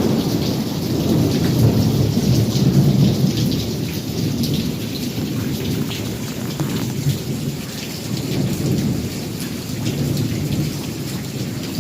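Heavy rain falling steadily, with thunder rolling under it. The rumble is loudest in the first few seconds, eases off in the middle, and builds again near the end.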